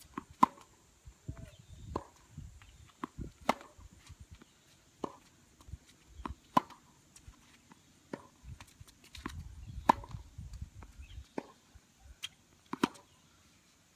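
Tennis ball struck back and forth with rackets in a rally: sharp hits roughly every one and a half seconds, with fainter knocks of ball bounces between them.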